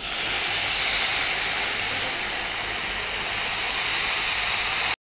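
Water poured from a jug into a hot iron kadhai of fried masala and oil, hissing steadily as it hits the hot pan. It cuts off abruptly near the end.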